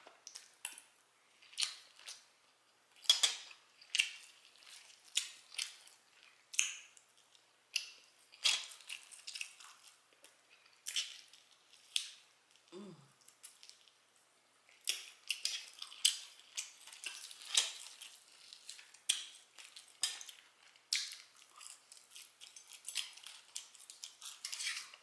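A person chewing crispy fried chicken: irregular sharp crunches and wet mouth smacks, with a brief hummed 'mm' about halfway through.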